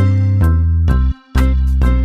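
Upbeat background music with a steady beat, bass and keyboard-like notes about twice a second, cutting out briefly for a moment a little past the middle.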